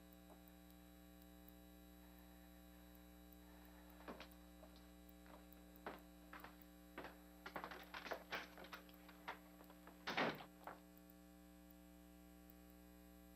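Near silence with a steady electrical mains hum, and light, irregular clicks and taps between about four and eleven seconds in, the loudest around ten seconds in.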